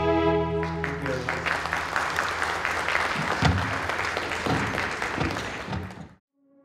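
The last held chord of a choir song with keyboard accompaniment ends under a second in, followed by applause from the audience that fades out near the end.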